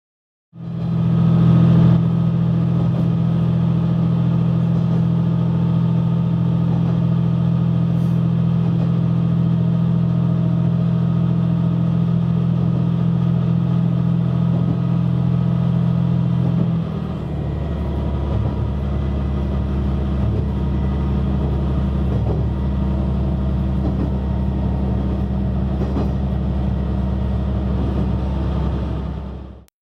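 Diesel railcar engine running steadily under power with a strong, even hum. About seventeen seconds in the note drops to a lower, rougher drone as power is eased off.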